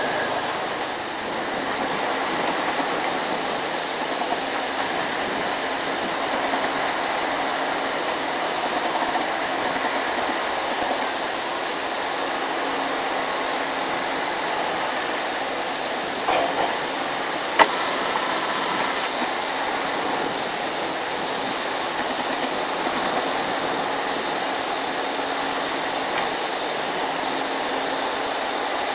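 JCB JS205SC crawler excavator's diesel engine and hydraulics running steadily while it digs, a continuous even hum. A single sharp knock is heard a little past halfway.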